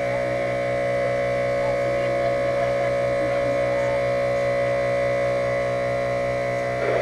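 Homemade air horn modeled on a Leslie S3L, fed by an air compressor, sounding one long steady chord of several tones with no change in pitch.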